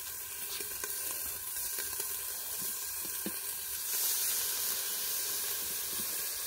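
Pork ribs sizzling steadily under a steel dome on a hot Blackstone flat-top griddle. About four seconds in, liquid squirted from a squeeze bottle onto the hot steel hisses louder as it flashes to steam.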